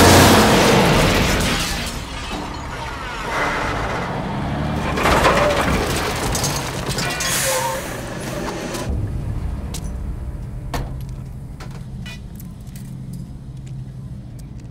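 Film sound effect of a heavy truck smashing into a phone booth: a loud crash of crumpling metal and breaking glass, loudest at the start, with more crunching and debris surges over the next several seconds. From about nine seconds in it settles to a low steady rumble with small bits of debris ticking and tinkling.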